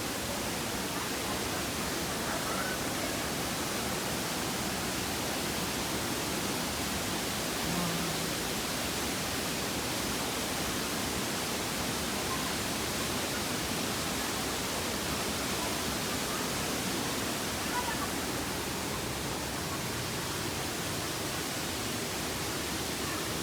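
Steady rushing roar of a waterfall, an even wash of falling water with no change in level.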